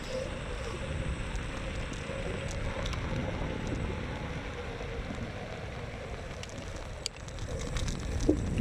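Xiaomi M365 electric scooter being ridden, with a steady rumble of wind and road noise, a faint steady whine and scattered small clicks and rattles, more of them near the end.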